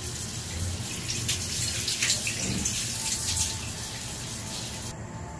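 Chicken tinola broth heating in a covered pan on a gas stove, a steady bubbling hiss with fine crackling under the glass lid. The hiss drops away abruptly about five seconds in.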